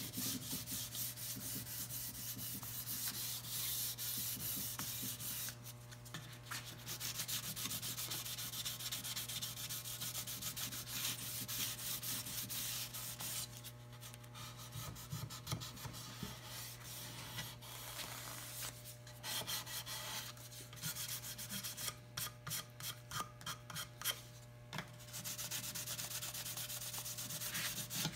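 Fine 400-grit sandpaper rubbed by hand in quick back-and-forth strokes over the varnished wooden hull of a half model, a light scuff-sanding of the varnish between coats. The strokes pause briefly a couple of times and turn short and choppy a little before the end.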